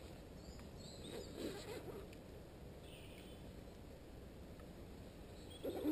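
Faint bird calls, a few short chirps, over a quiet steady background.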